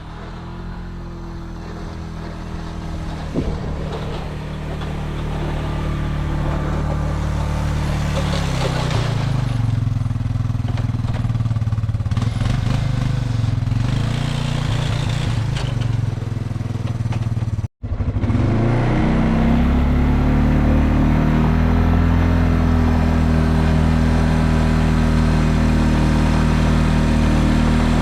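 2002 ATV engine running as it drives, growing louder over the first few seconds, dropping in pitch for a while, then running steadily at a higher pitch after a sudden short drop-out just past halfway.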